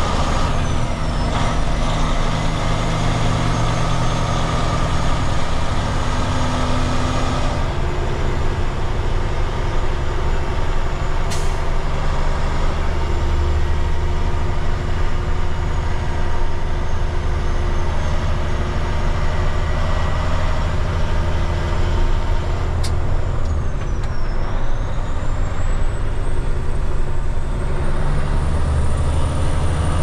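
Heavy rotator tow truck's diesel engine running steadily under way, with road noise, heard from inside the cab. A hiss over it drops away about eight seconds in, and there are two faint clicks.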